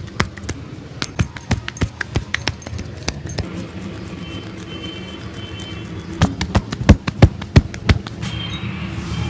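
Rapid percussive slaps and taps of a barber's hands on a customer's head and body during a massage, several strikes a second for the first few seconds. After a pause comes a burst of louder slaps about six seconds in, the loudest near seven seconds.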